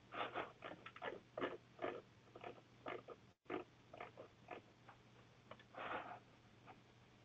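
Faint, irregular clicks and taps of typing on a computer keyboard, heard through a webinar audio line with a steady low hum underneath and a brief dropout about three and a half seconds in.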